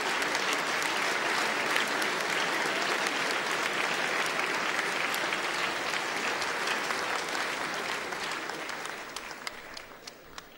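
Audience applauding, dying away over the last couple of seconds to a few scattered claps.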